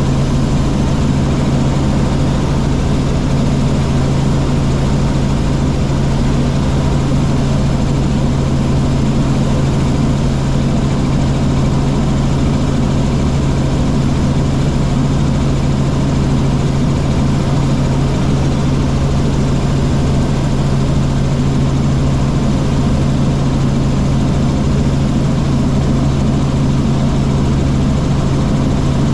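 Helicopter running steadily in flight: an even engine-and-rotor drone with a constant low hum that never changes in pitch or loudness.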